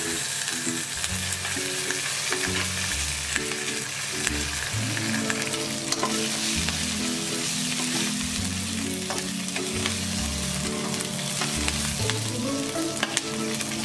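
Mustard seeds and green chillies sizzling in hot oil in a steel kadai, stirred and scraped around with a steel ladle, with scattered sharp ticks over the steady sizzle. Soft background music plays underneath.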